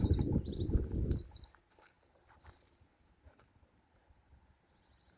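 A small songbird singing rapid, high trills and chirps, fading after about three seconds. A loud low rumble sits under it for the first second and a half.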